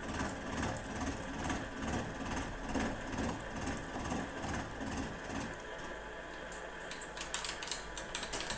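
Milling machine cutting the end of a C45 steel bar at 150 RPM, with a steady high whine and a rhythmic chatter of about two to three cuts a second that eases after about five seconds. This is the second squaring pass.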